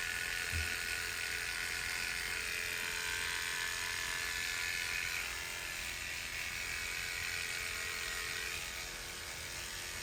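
Electric hair clippers buzzing steadily as they shave the scalp's donor area at the back and sides of the head, ahead of graft extraction; the buzz eases slightly near the end.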